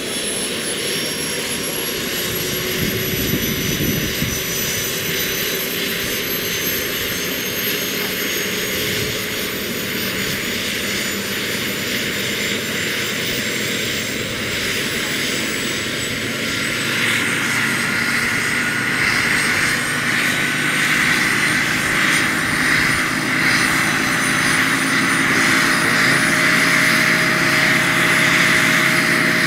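Model helicopter's Jakadofsky 5000 gas turbine and main rotor spooling up on the ground. The whine rises slowly and steadily in pitch, and grows louder about two-thirds of the way through.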